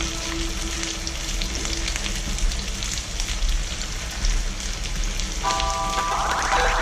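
Togue okoy (bean sprout and ground beef fritters) deep-frying in hot oil, a steady sizzle full of small crackles. Background music comes in near the end.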